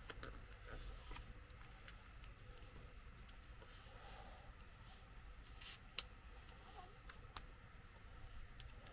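Faint rustling and crinkling of origami paper being folded and creased by hand, with a few sharper paper crackles in the second half.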